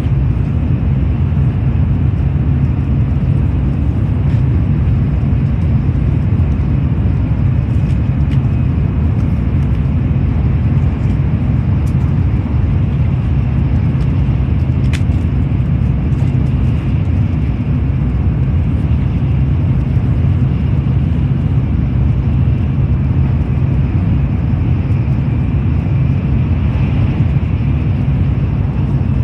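Steady low rumble of a Shinkansen bullet train running at speed, heard inside the passenger cabin, with a few faint clicks and one sharper tick about halfway through.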